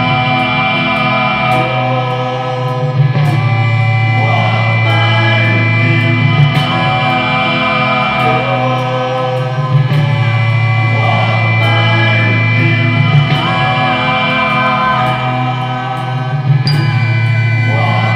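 Acoustic folk song played live: singing over a nylon-string guitar, with a sustained low drone beneath and light percussive taps.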